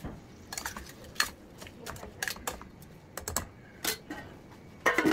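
Stainless steel lid and kadai knocking together: light, irregular metal clicks and taps, then a louder clatter near the end as the plate-lid is handled on the pan.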